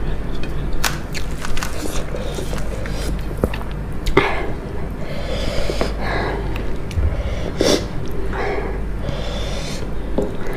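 Close-miked eating: crunching and chewing of crispy food, with short clicks scattered through and several loud nasal breaths between bites.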